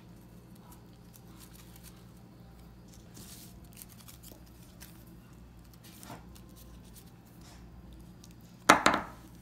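Tissue paper being handled: faint scattered rustles over a low steady hum, with one short, loud, sudden noise near the end.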